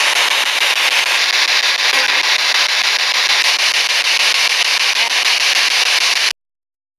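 Spirit box radio-sweep device hissing with loud, steady static as it scans through stations. The static cuts off suddenly about six seconds in.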